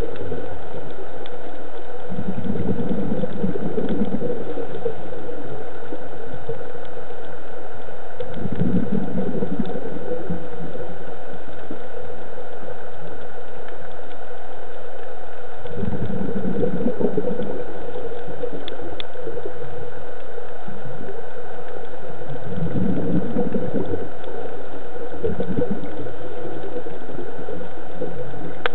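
Scuba diver's exhaled bubbles gurgling underwater in bursts every few seconds, over a steady hiss.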